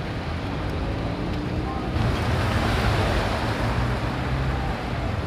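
Road traffic passing close by: a steady rush of engine and tyre noise from cars and a pickup truck driving past, growing louder about two seconds in.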